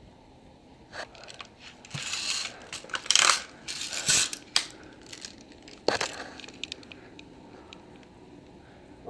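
BB gun being handled: irregular clicks and light metallic rattling, loudest between about three and four and a half seconds in.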